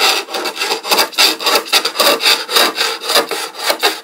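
Hand sanding of a wooden cabinet's surface with a small piece of sandpaper: brisk back-and-forth scratchy strokes, about three or four a second.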